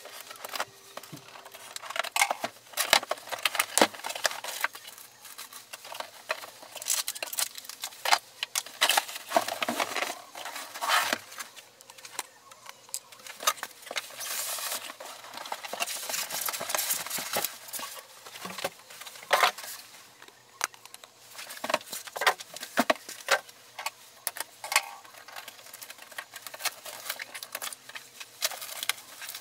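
Hands unpacking a boxed printer: cardboard flaps, styrofoam packing and a plastic bag rustling, scraping and crinkling in irregular bursts, with occasional knocks.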